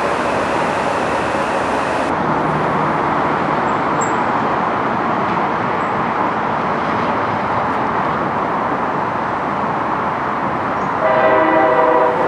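Electric train running through the station with a steady rush of wheel and motor noise; about eleven seconds in, its horn sounds one chord lasting about a second.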